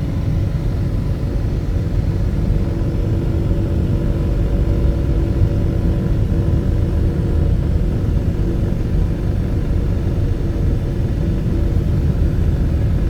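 Steady rumble of a car's engine and tyres while driving at an even pace.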